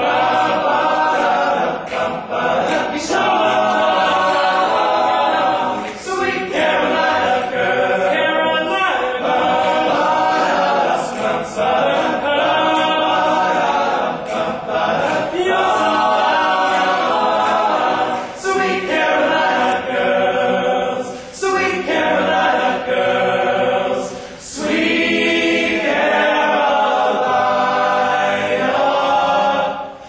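All-male a cappella group singing a song in close harmony, voices only with no instruments. Phrases follow one another with short breaths between them.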